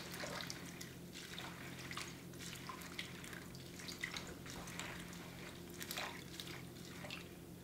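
A hand swishing baby lettuce leaves around in water inside a salad spinner bowl, washing them: faint, irregular sloshes and drips.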